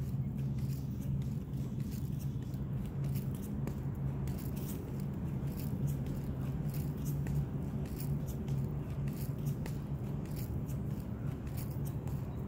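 Handling noise from a phone carried while walking: irregular soft clicks and scrapes over a steady low hum.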